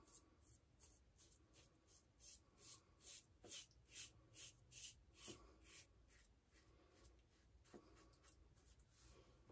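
Blackland Blackbird titanium double-edge safety razor with a Bolzano blade, scraping through lather and stubble in short, faint strokes, about two or three a second, thinning out in the last few seconds.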